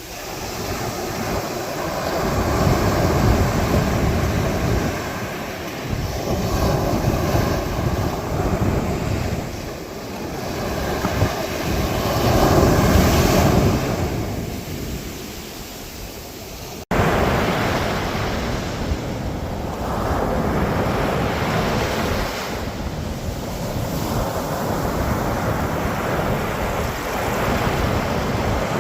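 Ocean surf breaking on a beach, the wash swelling and ebbing every few seconds, with wind buffeting the microphone. An abrupt cut about halfway through, after which the surf is steadier.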